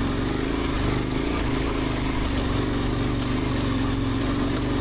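KTM 1090 Adventure R's V-twin engine running steadily as the bike rides a rough stony lane, over a constant rush of wind and tyre noise.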